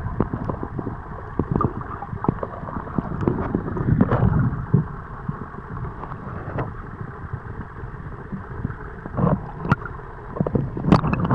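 Sea water sloshing and bubbling around a camera held just under the surface: a muffled rushing with many scattered crackles and pops, busiest about four seconds in and again near the end.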